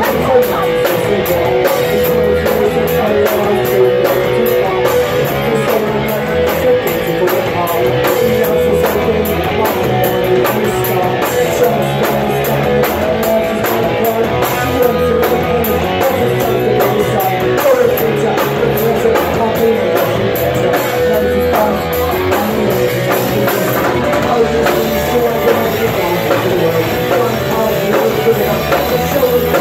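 A punk rock band playing live: electric guitar and a drum kit, loud and continuous.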